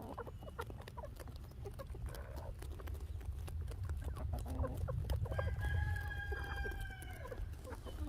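A rooster crowing once, a long, steady call of about two seconds in the second half, with soft clucking from the chickens and scattered faint clicks around it.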